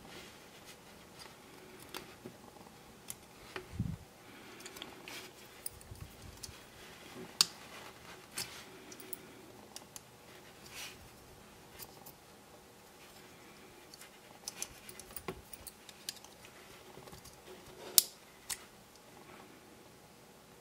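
Small clicks and scratches of plastic and metal as a Hornby ringfield model-train motor is carefully pried apart by hand with a small screwdriver. Two louder snaps stand out, about seven seconds in and near the end.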